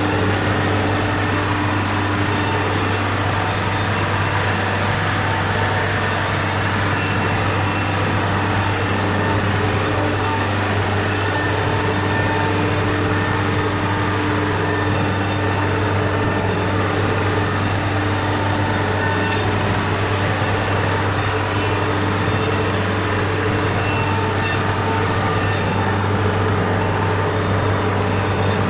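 A CNC router cutting a sheet of MDF, its spindle and dust extraction running without a break. It makes a steady machine noise: a low hum with several constant tones above it.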